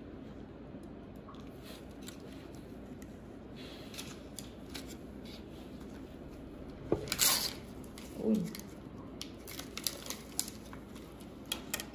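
Packaging of IV catheters being torn open and handled: a short tearing rip about seven seconds in, then scattered small clicks and crinkles of the wrappers and plastic parts.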